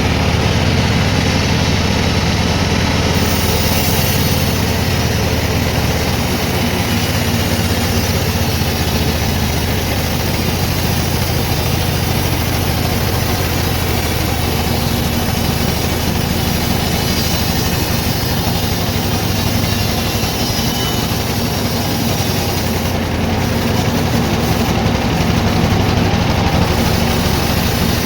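Sawmill machinery running steadily: a low, even engine-like hum with a wide rushing noise over it, unbroken throughout.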